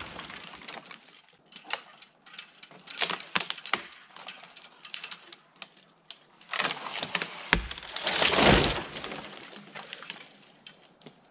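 Branches and twigs cracking and snapping, with scattered sharp snaps and a longer rush of crackling brush about two-thirds of the way through.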